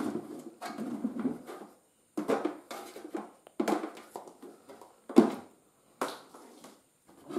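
Hands handling a home inverter unit and its battery cables: an irregular string of short rubs, taps and knocks, with one sharp knock about five seconds in.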